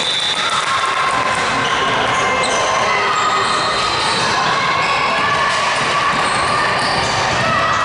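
Basketball bouncing on a hardwood gym floor, against a steady background of voices and other noise that echoes in the large hall.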